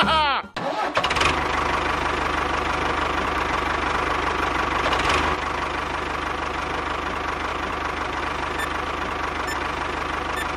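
A small motor running steadily with a fast, even low pulse, dropping a little in level about five seconds in. Background music cuts off just at the start.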